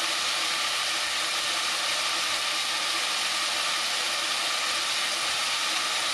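Chopped tomatoes and shallots sizzling steadily in hot oil in a pan as the tomatoes sauté down.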